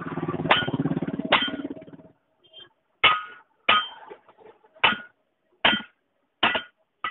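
Hammer striking the steel lock ring of a Tata 407 truck wheel rim to seat it on a newly fitted tyre: about eight sharp, ringing metallic blows, spaced roughly a second apart. A low steady rumble runs under the first two seconds.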